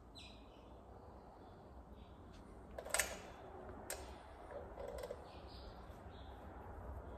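Faint clicks and taps of a fuel pump, its filter and a small retaining clip being handled and fitted together by hand, with a sharper click about three seconds in and another about a second later.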